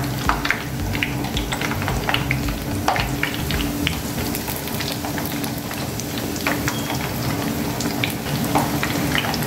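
Breaded sandwich pieces frying in hot oil in a pan: a steady sizzle with scattered crackling pops as they are turned over, and a faint steady hum underneath.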